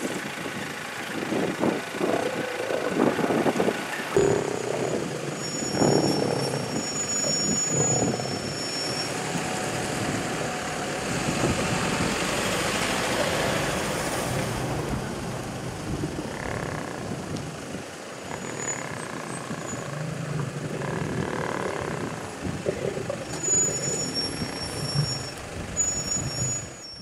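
Vehicles idling in a stopped queue of traffic, with rough, irregular growls from a pride of lions feeding on a buffalo carcass. The growls are loudest in the first six seconds.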